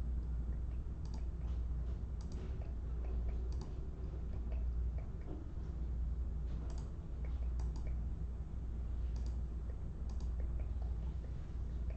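Scattered light clicks and taps of trading cards and their packs being handled, over a steady low hum.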